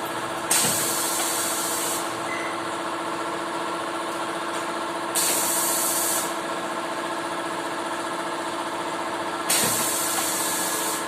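Semi-automatic screen-printing machine running with a steady hum, broken three times by a burst of air hissing out, about a second each, near the start, midway and near the end, each starting with a soft knock, like a pneumatic cylinder venting as it strokes.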